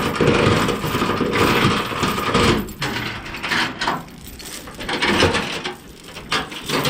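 Steel load-securement chain rattling and clinking against metal, with a dense scraping jangle first and then scattered sharp clanks and knocks.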